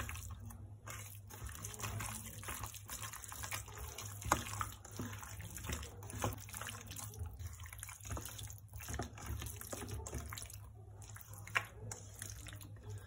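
Faint wet squelching of a hand mixing raw chicken pieces into a thick yogurt-and-spice marinade in a stainless steel bowl, with a few sharper clicks.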